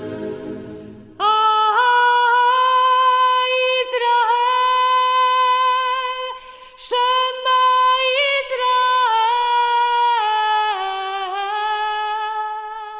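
A woman's voice singing a wordless solo melody in long held notes, in two phrases. The end of a lower sung chant fades out in the first second.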